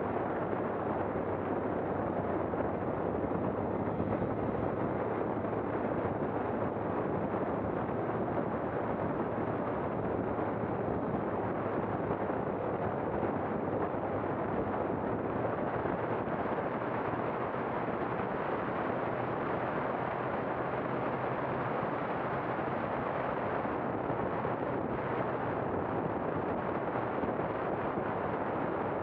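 Steady, unbroken rumbling noise of a moving vehicle, with wind buffeting the microphone.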